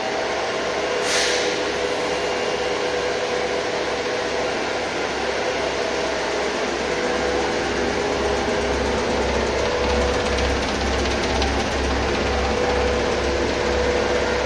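Vibrating sieve running while sieving powder: a steady mechanical hum with an even low throb that grows stronger about halfway through. A brief hiss about a second in.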